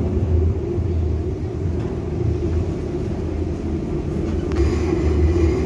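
Cabin sound of an FGC series 115 electric multiple unit running: a steady low rumble with a hum from the running gear and traction equipment. A brighter rushing noise grows louder about four and a half seconds in.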